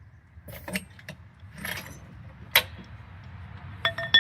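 Metal clanks and clicks from a car jack and hand tools as the car is let down off the jack. There is a sharp knock a little past halfway and a ringing metallic clink near the end.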